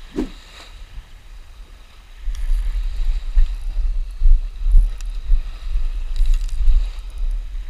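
Wind buffeting the camera microphone: gusty low rumbles that set in about two seconds in and come and go.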